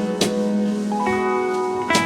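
Background music: plucked guitar notes with a steady beat.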